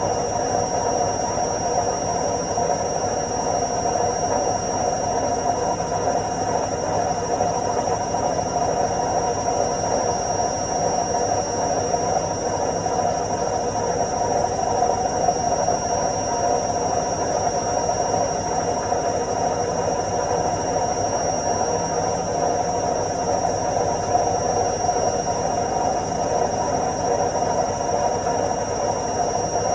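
Washing machine on its spin cycle: the drum spinning at a steady speed, an even whirring rumble with a constant high whine over it.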